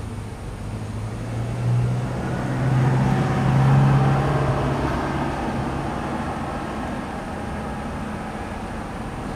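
A passing motor vehicle: a low engine drone swells over a few seconds, is loudest about four seconds in, then fades away.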